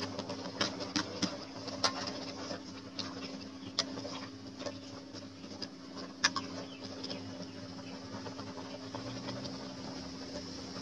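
Scattered sharp clicks and light knocks from a metal ladle against an aluminium pot of simmering soup as greens go in and it is stirred, the loudest click about six seconds in. A steady low hum runs underneath.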